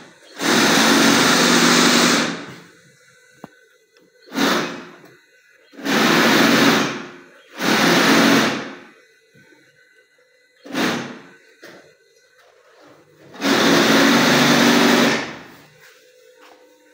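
Union Special industrial sewing machine running in six short bursts, each from half a second to two seconds long, stopping between them. The machine is being run briefly between adjustments to its stitching mechanism.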